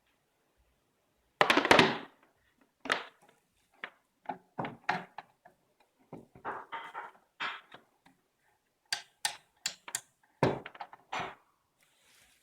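Hands handling a cardboard box and its packaging: an uneven run of knocks, rustles and sharp clicks, with a loud thunk about a second and a half in and another about ten seconds in.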